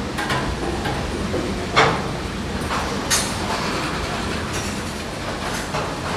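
Train rolling by on the rails: a steady rumble with sharp clanks, the loudest about two seconds in and another about three seconds in.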